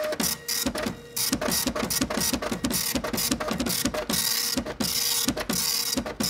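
Rapid, rhythmic mechanical clatter like a teletype or printer, about five strokes a second with a faint steady tone beneath, used as a news-intro sound effect.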